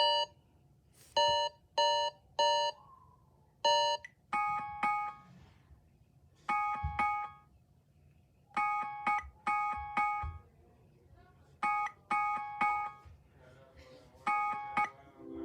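Sony Walkman NW-A300 built-in alarm tones: short electronic beeps repeating in groups. About four seconds in, the beeps change to a different repeating pattern of triple beeps.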